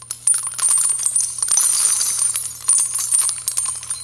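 Jingling, clinking sound effect: a dense, irregular run of tiny metallic chinks over a faint low hum.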